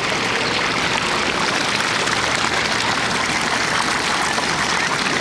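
Steady rush of moving water in a shallow kiddie pool, like a running stream.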